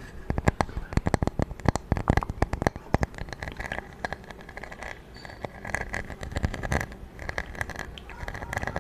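Close-miked ASMR trigger sound: quick, irregular tapping and scratching on an object, dense clusters of small clicks that thin out and pick up again.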